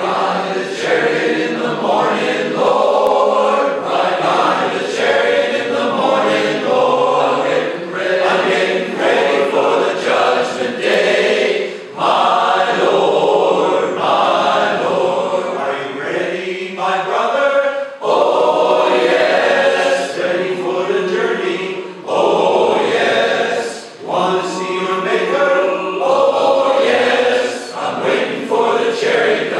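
Large men's barbershop chorus singing a cappella in close harmony, phrase after phrase, with brief dips between phrases.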